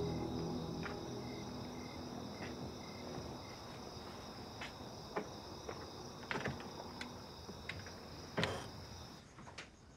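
Crickets chirping steadily at night, under the last of a held music chord that fades out in the first second. A few light clicks and steps come through, with a louder knock about eight seconds in, and the cricket sound stops suddenly near the end.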